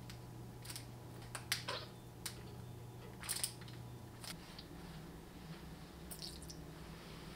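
Plastic condiment squeeze bottles being squeezed and handled over a glass bowl: a scatter of sharp clicks and a few short sputters. A faint low hum underneath stops about halfway through.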